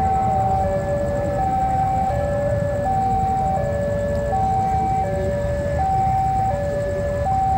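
Railway level-crossing warning alarm sounding a steady two-tone ding-dong, a higher and a lower tone alternating about every 0.7 seconds, over a low rumble of engines.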